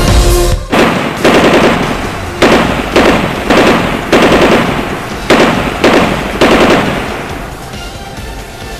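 A string of loud gunshots, about eight or nine at uneven intervals over some six seconds, each with an echoing tail, fading out near the end.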